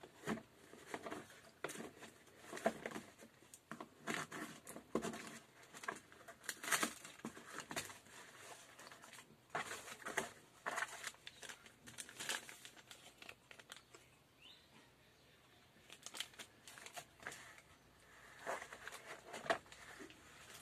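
Hands opening a cardboard shipping box: the flaps pulled open and the cardboard and packaging crinkling and rustling in irregular bursts. It goes quieter for a few seconds about two-thirds through, then picks up again.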